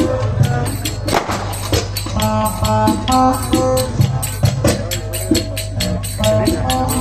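Turkish folk music: wooden spoons (kaşık) and zils clacking and jingling a fast, even rhythm, over a melody instrument and a steady low drone.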